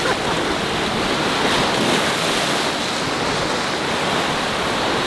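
Surf breaking and washing over jetty rocks: a steady rush of foaming seawater.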